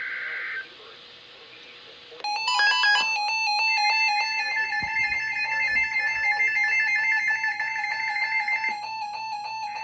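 Emergency Alert System tones ahead of a flood warning. First the tail of a screeching two-tone SAME data burst. About two seconds in, a loud, pulsing electronic alert tone starts and sounds for about eight seconds.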